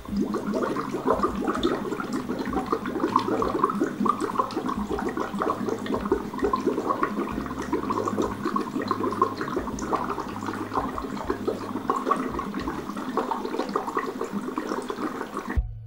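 Breath blown steadily through a plastic straw into a glass of water, bubbling continuously, then stopping abruptly near the end.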